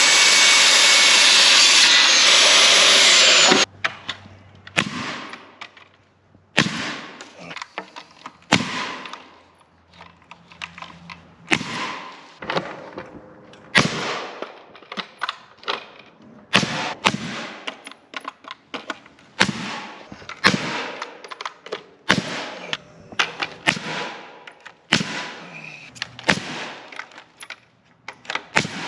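A power saw cuts 2x4 lumber for about three and a half seconds and stops abruptly, followed by a long run of sharp knocks on wood, one every second or two, as the coop's wall framing is put together.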